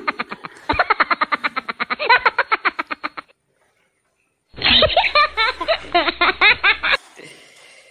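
Laughter in two rapid, high-pitched bursts, with a pause of about a second between them.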